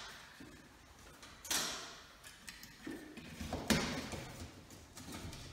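A few short knocks and clicks of things being handled, the loudest about a second and a half in and another near four seconds in.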